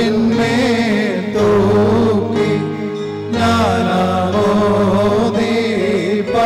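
Voices singing a slow chanted church hymn in long held phrases, with a steady drone sounding beneath the melody.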